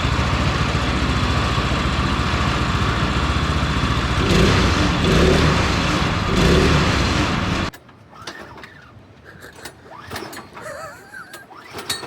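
Predator small engine of a swapped riding lawnmower running loudly, swelling in level a few times as it is put in drive, then cutting out abruptly about eight seconds in: the engine stalls.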